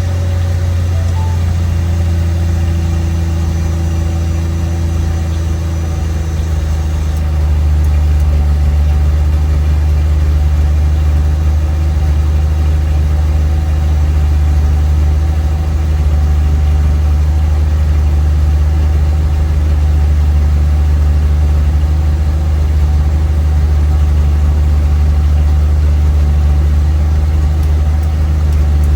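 Jeep Cherokee XJ engine idling steadily. About seven seconds in, the idle note settles slightly lower and a little louder.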